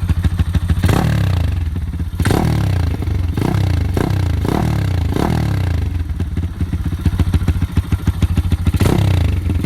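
Yamaha Sniper 150 motorcycle's single-cylinder engine, enlarged to 361cc, idling with a choppy beat and blipped by the throttle about seven times. Each rev jumps up sharply and falls back to idle, with a quick run of blips in the middle and a last one near the end.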